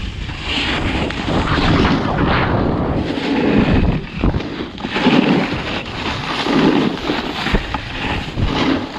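Wind rushing over the microphone and a snowboard sliding and scraping over hard, icy snow, rising and falling in loudness with the turns.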